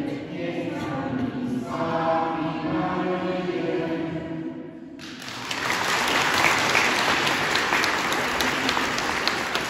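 A group of boys singing a Marian hymn together, the song ending about four and a half seconds in. The audience then applauds, louder than the singing.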